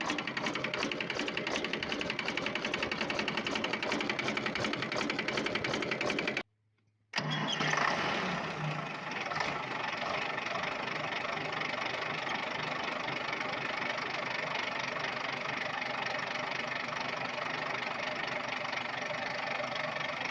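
Volvo Penta TWD121 six-cylinder turbocharged diesel running with a rapid, even knocking, a fault the owner traced to a bad intake valve. After a brief break about six seconds in, the engine is heard again, surging briefly and then running steadily.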